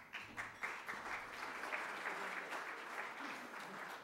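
Audience applauding, a crowd of hands clapping that thins out toward the end.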